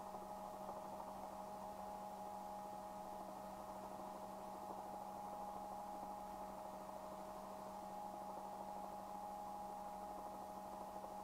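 Faint, steady electrical hum on the helicopter's intercom audio line between radio calls: a low hum with two steady higher tones over light hiss, unchanging throughout.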